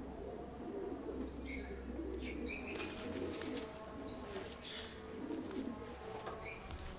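Pigeons cooing, a continuous low murmur, with short high chirps of small birds breaking in every second or so.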